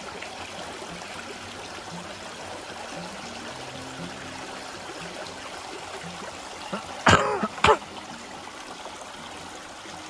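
Small river running steadily, with a person coughing twice in quick succession, loudly, about seven seconds in.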